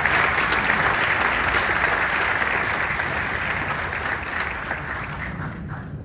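Audience applauding, loudest at first and dying away near the end.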